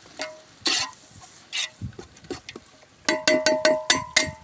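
A few scattered clatters, then about a second of fast metallic clinks, roughly six a second, each leaving a ringing tone: a metal ladle knocking against a metal cooking pot while stirring.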